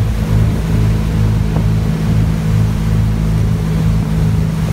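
Motorboat's engine running steadily at speed, a constant low hum, over the rushing noise of the boat's churning wake.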